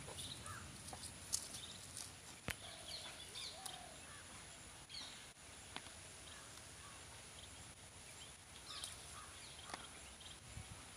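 Faint outdoor ambience with scattered short bird chirps and a few sharp clicks.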